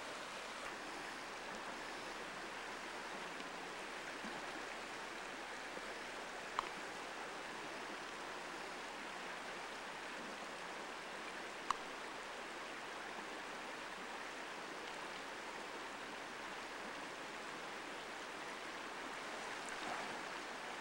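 Creek water flowing, a steady rush of noise, with two brief faint clicks, one about a third of the way in and one just past halfway.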